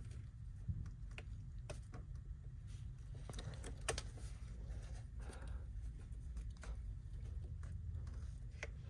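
Faint, scattered small clicks and scrapes of a razor blade slicing back the insulation on a car wire, over a low steady hum.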